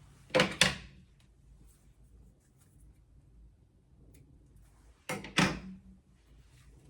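Two short double knocks of hard objects being handled, one right at the start and another about five seconds later, with quiet handling in between.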